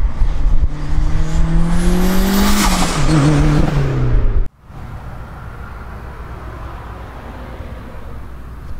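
Car engine revving hard under acceleration: its pitch climbs, then drops and falls away as it lets off. It cuts off abruptly about four and a half seconds in, leaving a much quieter steady hum.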